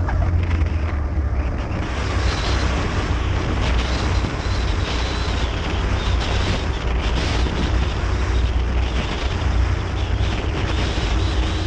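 Small aircraft's engine and propeller droning steadily, heard from inside the cabin.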